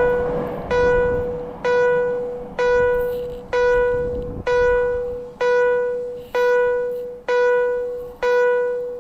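Station platform passing-train warning chime of the Toei type: a single bell-like tone struck about once a second, each strike fading before the next, about nine times. It warns that a train will pass without stopping. A low rumble of the passing train sits under the first half and dies away about halfway through.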